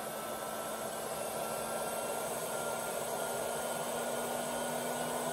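ATEN ST862D hot air station handpiece blowing air steadily in cool-down: the heater is switched off and the fan runs on to cool the nozzle. A low steady hum lies under the rush of air, with a faint whine that edges slightly higher.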